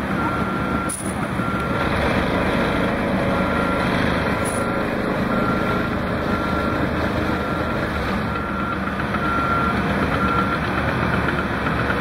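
Heavy construction machine's diesel engine running steadily while its backup alarm beeps, about one and a half beeps a second, stopping near the end.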